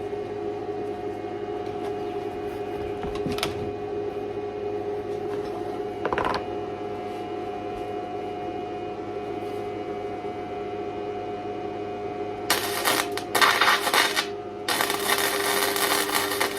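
Steady electrical hum with a couple of faint clicks. Near the end come two spells of welding-arc crackle, each about two seconds, as gussets are welded onto a steel truck frame. The crackle cuts off abruptly.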